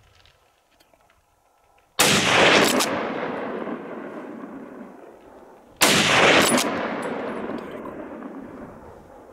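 Two rifle shots about four seconds apart, each echoing off the surrounding hillsides and fading out slowly.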